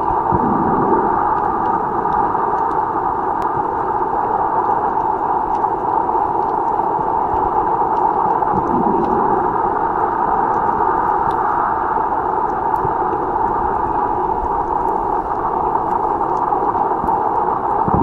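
Steady, muffled underwater noise picked up by a camera in a waterproof housing in shallow water, with a few soft swells and scattered faint clicks.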